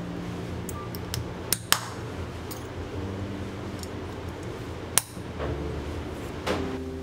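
Kitchen utensils and dishes clinking during baking prep: two sharp clinks close together about one and a half seconds in and another about five seconds in, with a few fainter ticks between. Soft background music plays underneath.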